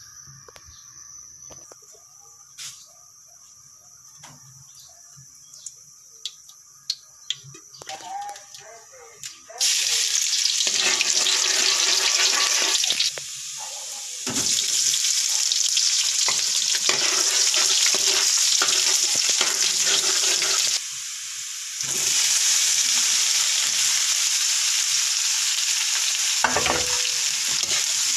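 Chopped garlic sizzling loudly in hot oil in a wok, starting suddenly about ten seconds in after a stretch of light clicks and knocks. The sizzle drops briefly twice, and there is a knock near the end.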